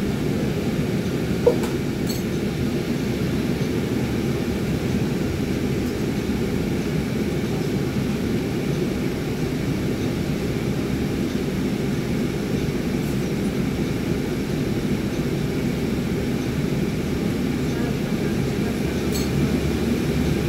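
Transit bus engine running steadily, heard from inside the passenger cabin as an even low rumble, with a single click about a second and a half in.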